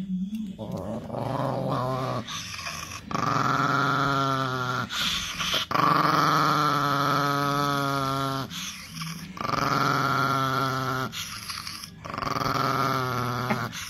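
A small white dog growling at a dangled car key, lips drawn back over its teeth: about five long growls, the middle one the longest at about three seconds, with short breaks between.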